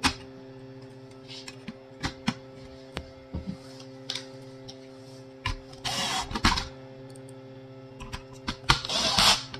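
Scattered clicks and taps of metal and plastic parts being handled and fitted into a copier's touch-screen control panel, then two short runs of an electric screwdriver driving screws, about six seconds in and near the end. A steady low hum runs underneath.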